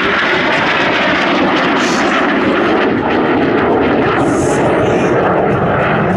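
Jet noise from Aermacchi MB-339 PAN aerobatic jets, each with a single Rolls-Royce Viper turbojet. The sound is a steady, even rush.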